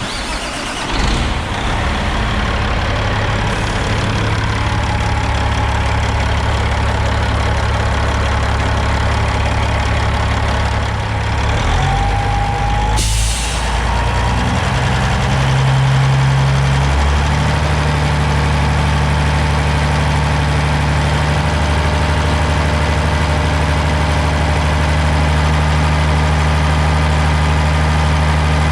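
Caterpillar 6NZ inline-six diesel in a Peterbilt truck starting up and idling, then stepping up from low idle to high idle about halfway through, run this way to check the fuel system for air. A short hiss of air comes just before the engine speed rises.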